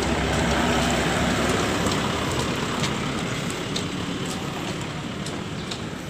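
Steady motor-vehicle noise, slowly fading away, with a few faint clicks.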